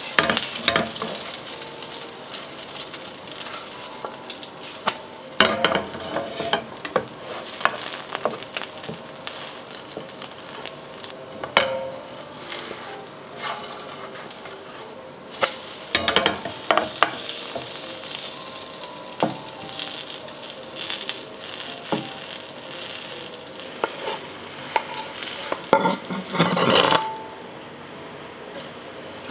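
Okonomiyaki sizzling in a hot non-stick pan, with a wooden spatula scraping and knocking against the pan several times. The sizzling drops away near the end.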